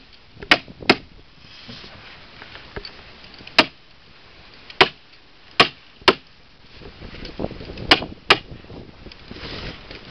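Hammer tacker (staple hammer) struck eight times, each blow a sharp smack driving a staple through the trough liner into the trough's edge, the strikes coming irregularly, some in quick pairs.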